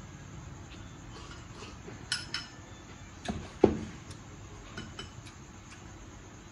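Scattered light clinks and knocks of wooden chopsticks against a ceramic rice bowl and dishes during a meal. The loudest knock comes a little over three seconds in, as the bowl is set down on the table.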